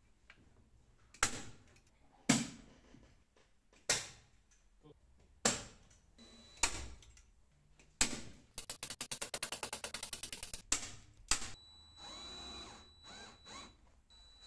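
Hand-tool work on a van's metal pop-top roof frame: six sharp knocks about a second apart, then about two seconds of rapid, even clicking, like a ratchet, and two more knocks. A faint steady high whine follows near the end.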